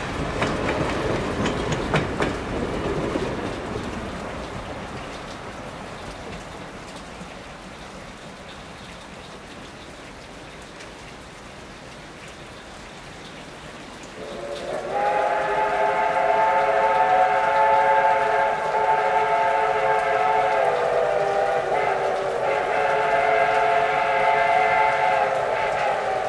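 A steam locomotive's running noise with some clatter, fading away over the first several seconds. About halfway through, a steam whistle blows a long blast of several notes at once, dips briefly and blows again; this whistle is the loudest sound.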